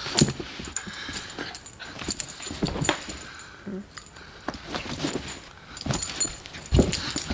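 Beagle puppy rough-playing with a person's hand on carpet: irregular scuffles and thumps, a few short whiny dog noises, and a light jingle of collar tags.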